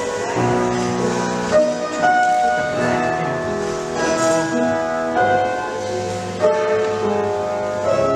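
Piano music: a classical-style piece of sustained chords changing about once a second.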